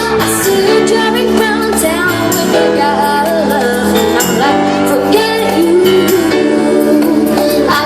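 Live pop band playing with a female lead voice singing over guitar, bass and drums, loud and steady throughout.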